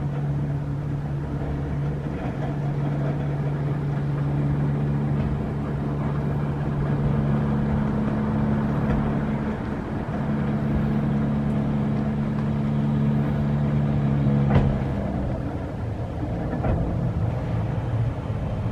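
Hakone Tozan funicular cable car running slowly down into the station with a steady hum. The hum stops with a clunk about fifteen seconds in as the car comes to rest at the platform.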